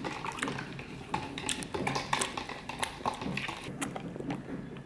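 Irregular soft taps and clicks of electronic piano keys being played, the keys' own clatter heard without the piano's sound.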